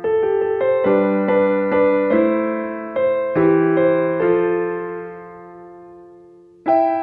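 Background piano music: a slow run of single notes and chords, each fading after it is struck, then a held chord dying away for a couple of seconds before a new chord sounds near the end.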